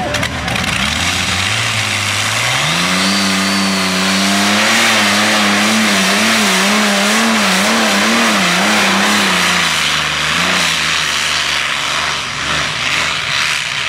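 The twin Allison V-1710 V12 aircraft engines of a methanol-fuelled modified pulling tractor rev up about two seconds in as the pull starts. They hold high revs under the load of the pulling sled, the pitch wavering up and down, then drop in pitch about ten seconds in and fade near the end.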